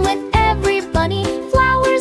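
Upbeat children's song instrumental: a bright melody over a steady bass beat, without singing.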